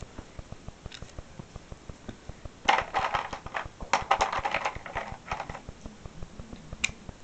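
Plastic felt-tip markers clattering and rustling for about three seconds as someone rummages for another marker, then a single sharp click near the end.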